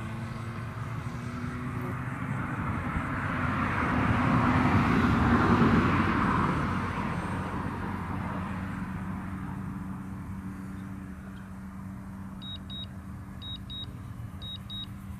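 A vehicle passes by, its noise swelling to a loud peak and fading away over several seconds. From about twelve seconds in, a DJI drone controller beeps in quick pairs about once a second, the warning that goes with the lost link to the aircraft and its automatic Return-to-Home.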